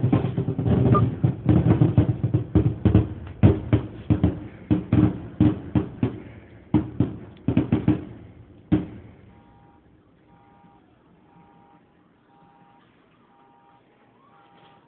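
Fireworks going off in a rapid, dense barrage of bangs with a low rumble, stopping abruptly after a last bang about nine seconds in. Faint repeating electronic beeps follow.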